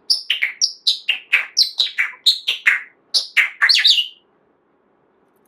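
Pet parrot whistling a rapid string of loud notes, each sliding sharply down in pitch, about four a second. The notes crowd together into a quick flurry and stop about four seconds in.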